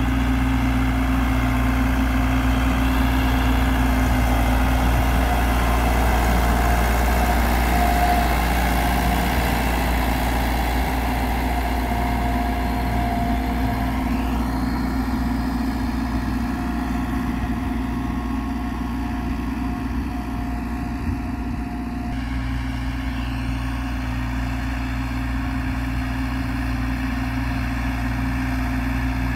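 Millat-built Massey Ferguson tractor's diesel engine running steadily while pulling a tillage implement through the field.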